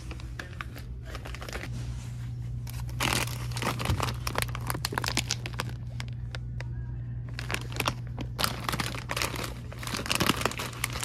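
Plastic packaging crinkling and crackling as it is handled, in several bursts with a short pause about two-thirds of the way through, over a steady low hum.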